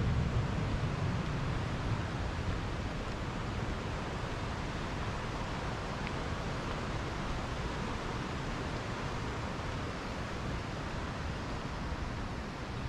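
Steady rushing of stream water, an even hiss with no distinct events. Low wind rumble on the microphone is strong at the start and eases off within about two seconds.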